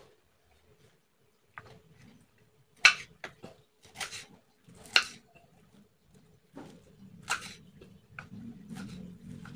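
Kitchen knife chopping bilimbi fruit on a wooden cutting board: about ten irregular sharp chops and taps of the blade against the board, the loudest about three and five seconds in.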